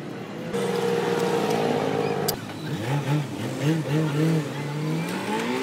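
Light truck's engine running steadily, then, after a sudden cut, revved in a series of short blips, its pitch rising and falling several times and climbing near the end.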